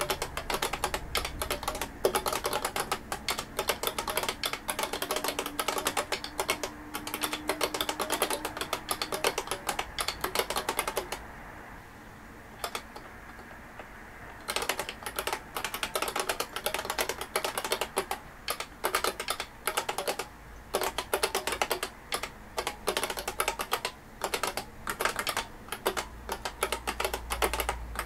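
Typing on an IBM 5251 beam spring keyboard: a quick, steady stream of sharp key clacks, breaking off for about three seconds partway through before resuming.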